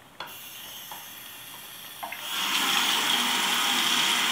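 Bathroom sink faucet being turned on: a faint flow at first, then about two seconds in the water opens up and runs in a steady stream into the basin.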